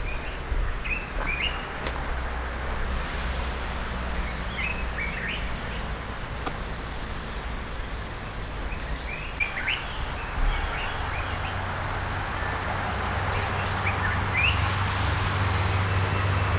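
Wild birds chirping outdoors, short scattered calls over a steady low background rumble.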